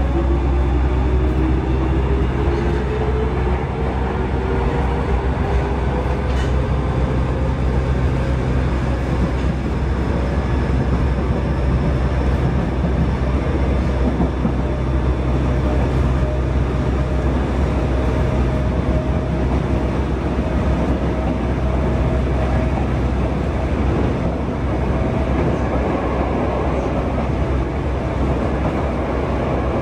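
Yokohama Blue Line 3000A subway car's Mitsubishi GTO-VVVF inverter and traction motors whining in rising tones as the train accelerates away from a station, then the steady running noise of wheels on rail in the tunnel, heard from inside the car.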